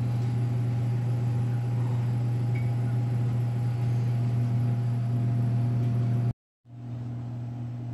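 Steady low hum of commercial kitchen equipment, with a fainter steady higher tone over it. The hum cuts out to silence for a moment about six seconds in, then returns a little quieter.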